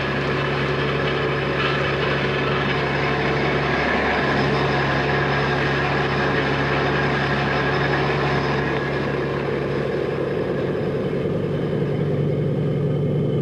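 Heavy engines or deck machinery of a salvage vessel running steadily: a constant low hum with several steady tones over a rumble.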